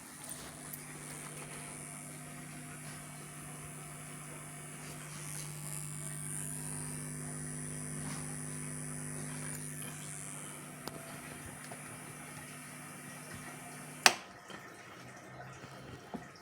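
Sunbuck AV-888BT amplifier giving off a steady electrical hum with a high whine, the unwanted 'teeeetttzzz' noise fault that it keeps coming back to. About fourteen seconds in there is one sharp click, after which the hum and whine drop away.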